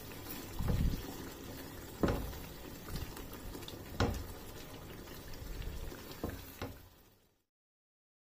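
Wet masala gravy bubbling and sloshing in a stainless steel pot as a silicone spatula stirs it, with several sharp knocks of the spatula against the pan. The sound fades out about seven seconds in.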